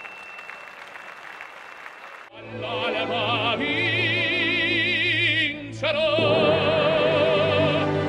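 A soft hiss for about two seconds, then operatic singing with a strong vibrato over orchestral music, broken by a brief pause a little past the middle.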